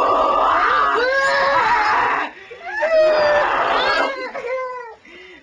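A voice screaming in two long, strained bursts, then a few shorter cries.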